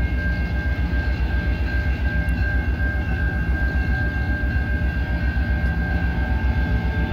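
EMD GP18 diesel locomotive approaching slowly at the head of a tank-car train: a steady, pulsing low engine rumble with a thin steady high tone over it.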